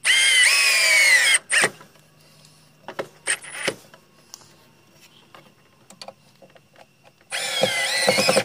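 Cordless drill driving wood screws through a 2x4 into a wooden post, in two runs: one at the start lasting about a second and a half, and one near the end lasting about a second. The motor's pitch sinks as each screw bites into the wood. A few light knocks come in between.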